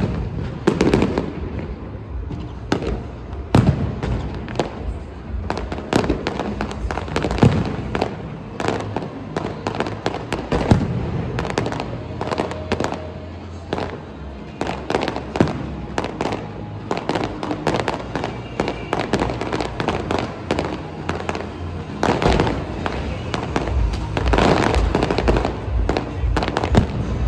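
Fireworks and firecrackers going off continuously: many irregular sharp bangs and crackles, growing denser and louder, with more deep rumble, near the end.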